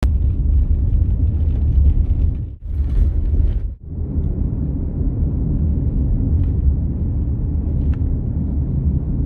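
Steady low rumble of a vehicle driving on a gravel road, heard from inside the cab: engine and tyre noise. It drops out briefly twice, about two and a half and four seconds in.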